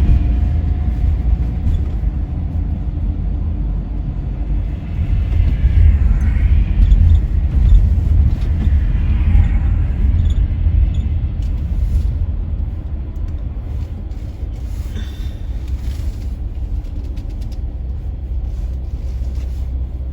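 Dodge Grand Caravan minivan driving on a highway: a steady, loud low rumble of road and engine noise, easing a little in the second half.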